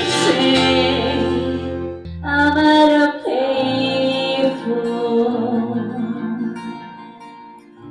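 Music: a song with a singing voice and guitar, a held sung note about two seconds in, then the last chords ringing and fading out.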